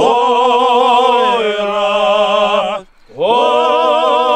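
Men's vocal group singing an old Adyghe (Circassian) Nart song a cappella. Long chanted notes with vibrato sit over a steady low drone. The singing breaks off for a breath near the three-second mark, then a new phrase starts with a rising swoop.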